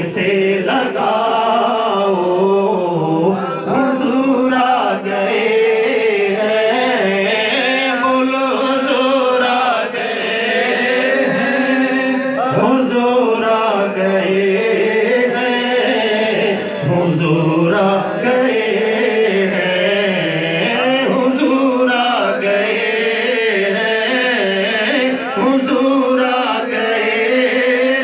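Male voices chanting an Urdu naat (devotional poem) in long, held, wavering melodic lines, without instruments.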